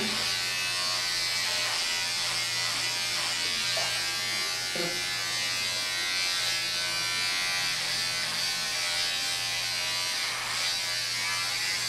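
Corded electric shaver running with a steady, unchanging hum while held against the beard on the chin and neck.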